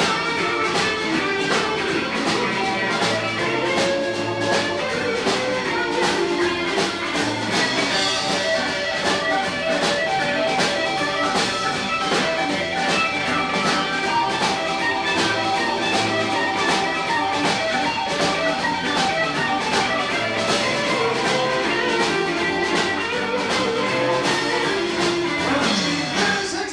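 Live blues band playing an instrumental stretch without vocals: electric guitars over a steady drum beat, with keyboard.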